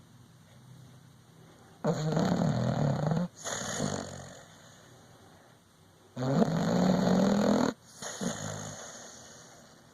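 Sleeping dog snoring: two loud, rasping snores about four seconds apart, each about a second and a half long and followed by a softer breath.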